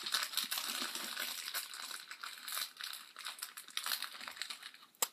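Sweet wrapper crinkling: a steady run of small crackles, with a sharp click near the end.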